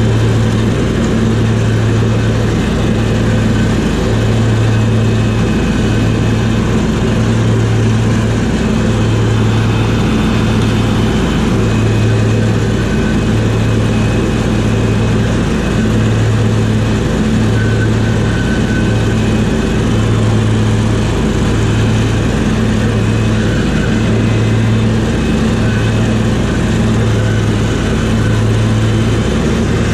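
Cub Cadet 3205 lawn tractor's engine running steadily at mowing speed while the tractor drives and cuts grass. Its low hum swells and fades about once a second.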